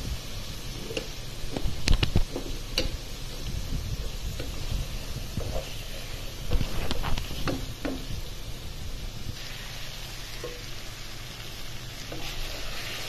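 Pre-fried chicken pieces sizzling in oily spice paste in a nonstick pan, being stirred so the wooden spatula knocks and scrapes against the pan. The loudest knock comes about two seconds in, with another cluster about seven seconds in. The masala has cooked until its oil separated, and the chicken is now being sautéed in it.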